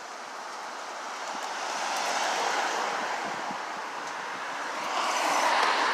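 Gusty wind after a tropical storm, dying down, rushing through street trees. It swells about two seconds in and again near the end.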